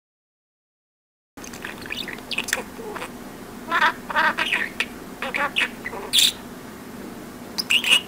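A pet budgerigar chattering and warbling in quick short chirps and squawky bursts, starting about a second and a half in after silence, over a faint steady hum.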